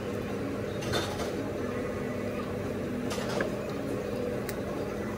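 Steady low restaurant room hum, with a few light clinks of a metal fork against a plate, about a second in and again around three seconds in.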